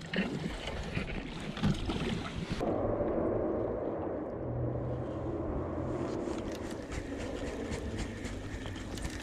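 River current rushing past a small inflatable boat, with wind buffeting the microphone and a few light handling knocks. The sound changes abruptly about two and a half seconds in to a fuller, lower rush of water.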